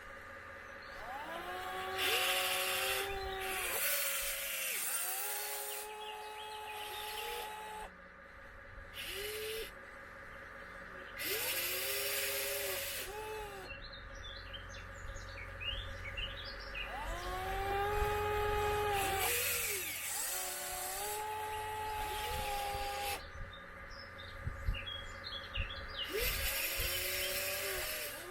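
Electric drive motors of a 1/14 scale RC excavator whining in repeated bursts, each tone gliding up in pitch as a motor starts, holding while it works, then dropping as it stops, often two motors at once at different pitches, with rougher rasping noise between.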